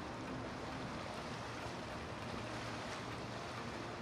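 Several boats motoring slowly on a river: a steady low engine hum over the wash of churned water.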